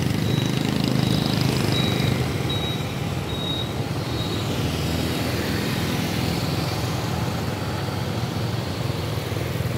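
Steady road traffic noise dominated by a nearby engine running at an even speed.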